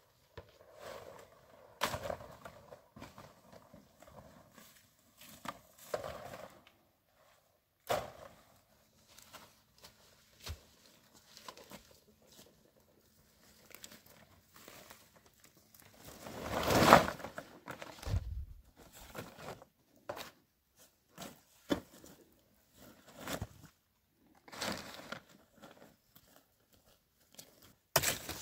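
Rustling and crackling of large leaves and dry undergrowth as a bundle of cut leaves is carried through brush, with scattered footsteps. One louder, longer rustle comes a little past halfway.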